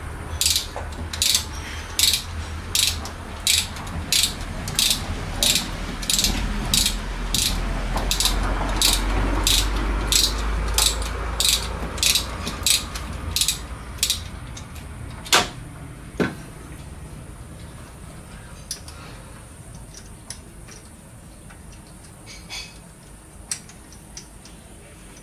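Ratchet wrench clicking in steady strokes, about two a second, as a nut or bolt is turned. After about fourteen seconds the clicking stops, two sharp metallic knocks follow, and then only a few faint clicks.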